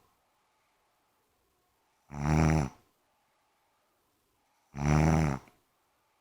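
A woman snoring in her sleep: two low-pitched snores, each under a second long and about two and a half seconds apart, with quiet breathing gaps between.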